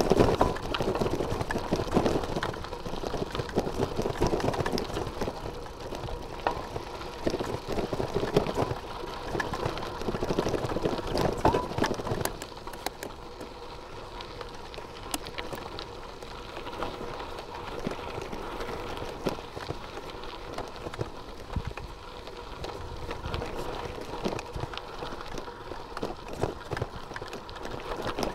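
Bicycle rolling over a gravel track: tyres crunching on loose stones with rattling clicks from the bike. Louder for the first dozen seconds, then quieter.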